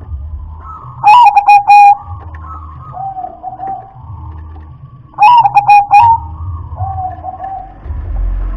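Zebra dove (perkutut) cooing: two loud phrases about four seconds apart, each a quick stuttering run of notes, with softer, lower coos in between.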